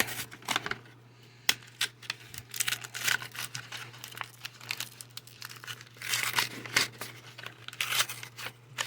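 Foil Yu-Gi-Oh booster pack wrappers crinkling and crackling as they are handled, in irregular sharp bursts, the loudest right at the start.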